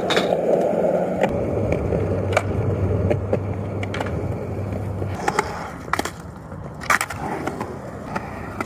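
Skateboard wheels rolling over concrete with a steady rumble. Several sharp clacks of the board popping and landing come a second or two apart.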